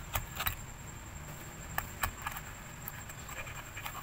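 Small, sharp clicks and taps of multimeter test-probe tips touching and shifting on diode leads on a circuit board, a few close together near the start and a few more in the middle.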